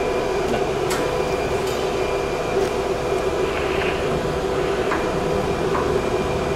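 Steady drone of machinery running, with a few light knocks and scrapes as a large MDF sheet is shifted into place on the CNC router's table.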